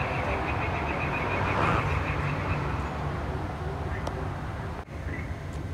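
Chorus of frogs calling loudly in a fast pulsing trill that fades after about three seconds, over a steady low rumble.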